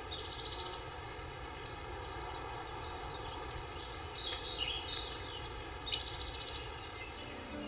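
Quiet outdoor ambience: a steady background hiss with birds chirping in short, rapid trills a few times.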